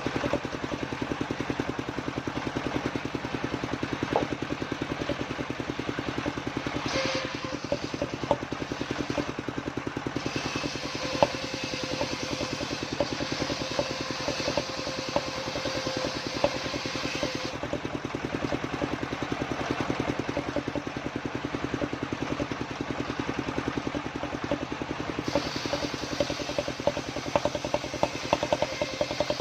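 A home-built circular saw running steadily, its motor pulsing evenly throughout. The blade cuts into waru wood with a hissing whine from about seven to seventeen seconds, then again from about twenty-five seconds on.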